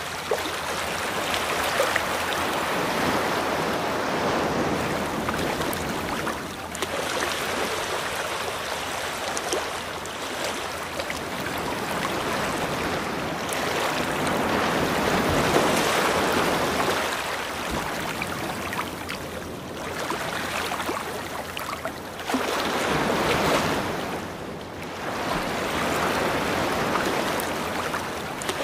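Ocean waves washing in and out: a rushing noise that swells and dies back every few seconds, with short lulls between surges.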